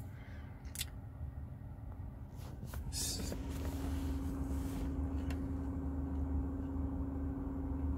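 Steady hum of a Tesla Model 3's climate system running, with a steady droning tone coming in about three seconds in. A few clicks and rustles of the phone being handled are heard near the middle.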